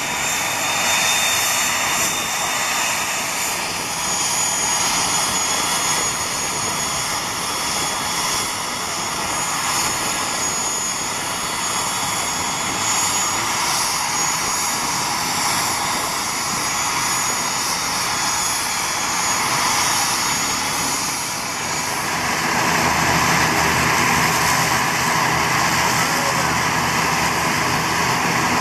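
ATR 72-600 turboprop airliner's engines running on the ground, a steady whine over engine noise. From about two-thirds of the way through it grows louder, with a low, even propeller drone.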